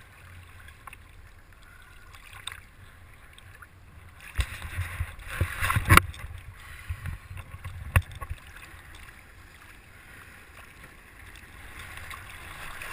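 Lake water sloshing and splashing around a camera held at the surface, with a cluster of louder splashes and knocks from about four to eight seconds in, the sharpest near six and eight seconds.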